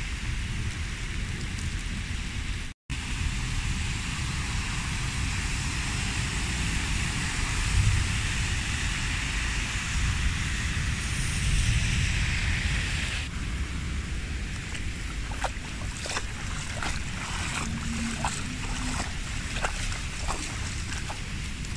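Wind rumbling on the microphone over a steady wet hiss of water, with a brief drop-out near the start. From about two thirds of the way through, footsteps splash and wade through shallow floodwater.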